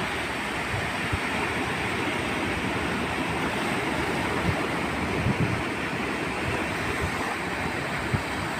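Sea surf breaking and washing up the sand and among shoreline boulders: a steady rushing hiss. A few brief low thumps break through it now and then.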